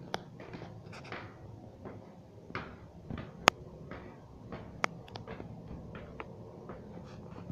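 A few sharp clicks and soft knocks over low rustling, the loudest click about three and a half seconds in: handling noise and footfalls from a handheld camera being carried toward wooden stairs.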